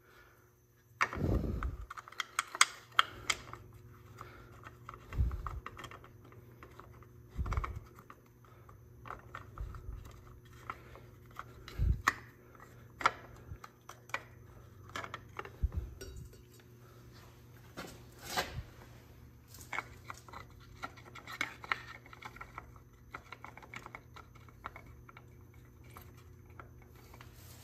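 Plastic filter cover being pressed and fitted by hand onto a Hydro-Gear ZT-3400 transaxle housing: scattered light clicks and knocks of plastic against the housing, with a few dull thumps.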